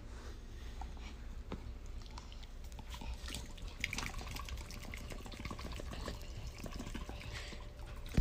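Faint wet smacking and small clicks as a dog mouths and licks at a person's hand, over a low steady hum.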